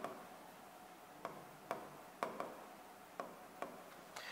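Faint, irregular taps and clicks of a pen tip striking an interactive whiteboard during handwriting, about eight in all.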